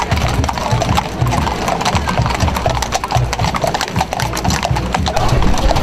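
Iron-shod horse hooves clip-clopping on wet asphalt as several horses walk, the strikes coming several a second in an uneven rhythm.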